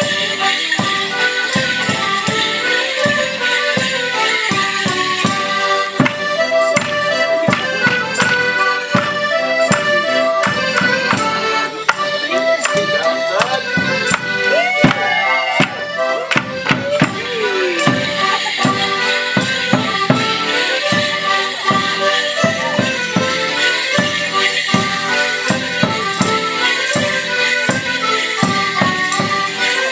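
Live folk band playing a traditional Morris dance tune, with held reedy notes over a constant jingle. From about six to eighteen seconds in, a run of sharp wooden knocks from the dancers' sticks clashing comes through the music.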